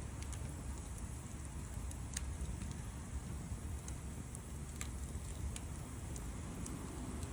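Wood campfire burning, with a few sharp crackles and pops scattered over a low steady rumble.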